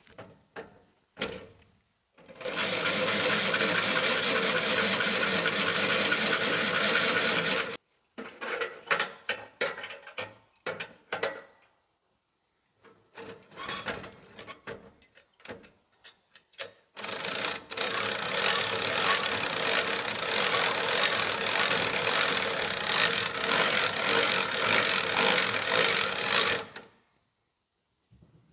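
Portable bandsaw sawmill running in two long, steady stretches that start and stop abruptly. Between them come scattered knocks and clatter of wood being handled.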